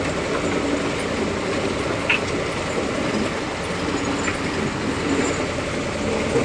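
Ginger washing machine running: a steady mechanical noise, with a few sharp clicks.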